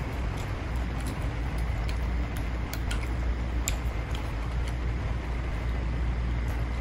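A person eating noodles: a few sparse, sharp eating clicks over a steady low rumble.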